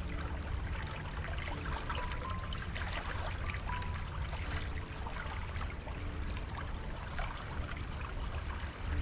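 A stream running and babbling steadily, with soft background music.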